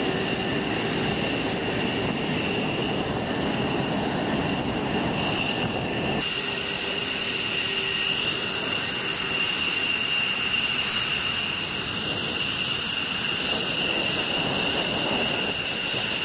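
Fighter jet engines whining steadily while taxiing: first an F-15's twin jet engines close by, with a deeper rumble under the whine, then, after a sudden change about six seconds in, F-16s further off, where two steady high whining tones dominate.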